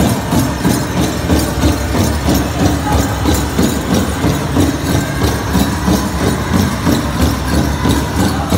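Powwow drum group striking a large drum in a steady, even beat for a grass dance song.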